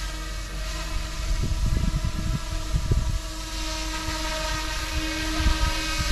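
Steady whine of an RC helicopter's brushless main motor and rotor in flight, a constant pitched hum with several overtones; the model is flying inverted. Irregular low rumbles of wind on the microphone come and go.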